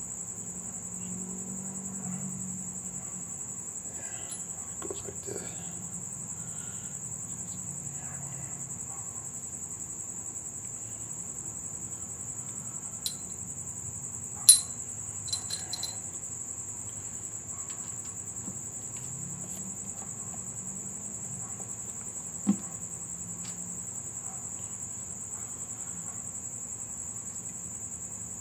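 Occasional light metallic clicks and clinks of valve-train parts and tools being handled on a Ford 302 V8's cylinder head during assembly, the sharpest clink about halfway through. A steady high-pitched whine runs underneath.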